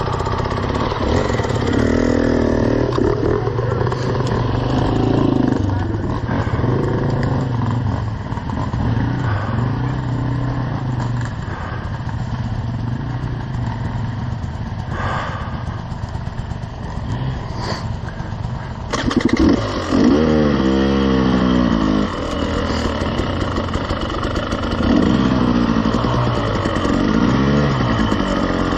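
KTM 300 two-stroke dirt bike engine at low speed, blipped on and off the throttle so its pitch keeps rising and falling. About two-thirds of the way through it jumps to a sharper, louder run of revs.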